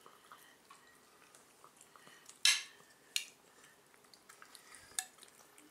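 Cats chewing and lapping food from ceramic bowls, with small wet ticks throughout. A sharp dish clink comes about two and a half seconds in, with lighter clinks shortly after and near the end.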